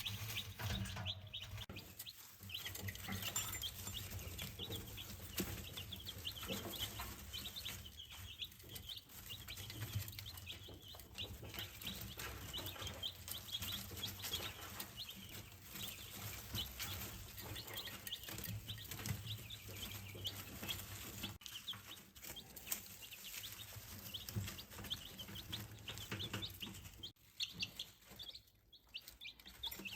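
A brood of baby chicks peeping: many short, high chirps overlapping continuously, over a faint steady low hum.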